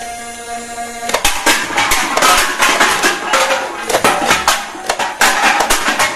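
Toy foam-dart blaster firing a rapid string of shots, starting about a second in, with aluminium drink cans clattering as they are hit and knocked over.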